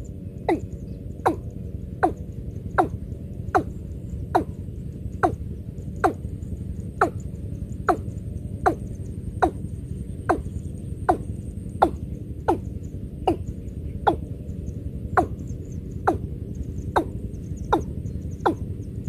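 Watercock (cúm núm) calling: a slow, regular series of short notes, each dropping sharply in pitch, a little over one a second, over a steady low rumble.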